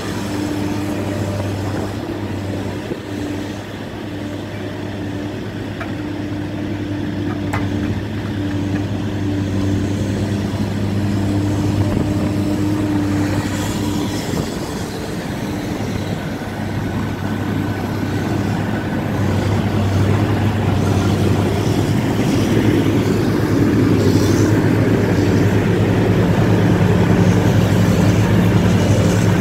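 Heavy diesel engines running steadily while a log loader unloads logs from a log-truck trailer. The engine sound grows louder and fuller in the second half.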